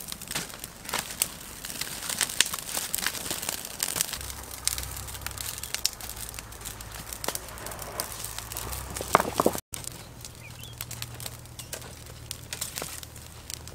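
Open wood fire crackling with many irregular sharp snaps and pops, with a low steady rumble underneath from about four seconds in.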